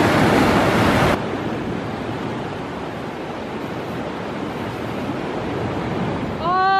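Sea surf surging and breaking against rocks, loud for about the first second, then settling into a steady wash of sea and wind.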